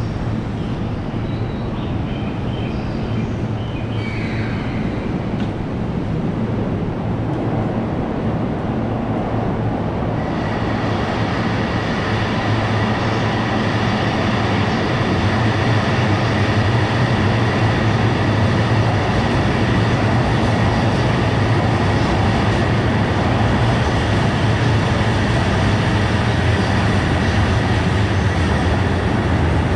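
Electric train running at a station platform, a steady loud rumble. A steady high whine joins it about ten seconds in.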